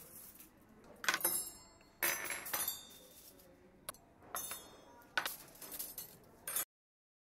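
Crockery, glasses and cutlery clinking and clattering: about six sharp knocks, each with a brief glassy ring, roughly a second apart over a soft background. The sound stops abruptly near the end.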